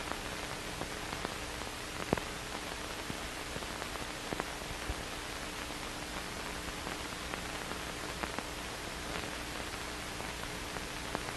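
Steady hiss of an old film soundtrack, with a faint steady hum and scattered crackling clicks, the sharpest about two seconds in.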